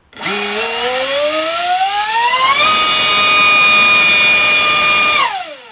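Dr Mad Thrust 2870 3000kV inrunner brushless motor spinning a 4.75x4.75 APC propeller on a 4-cell LiPo at a thrust test, loud. It runs up with a rising whine over about two and a half seconds, holds steady at full throttle, then winds down with a falling whine near the end.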